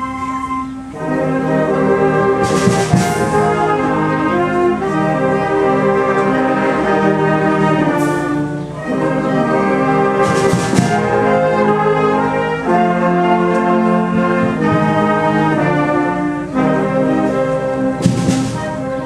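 Youth wind band playing a concert band piece, the brass section prominent in loud sustained chords, with a cymbal crash four times.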